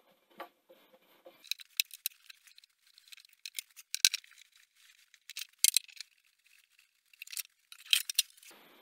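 Metal top cover of a Sony SL-HF100 Betamax video recorder being worked loose and lifted off the chassis: a scatter of sharp metallic clicks and light rattles. The loudest come about four seconds in, with another cluster near the end.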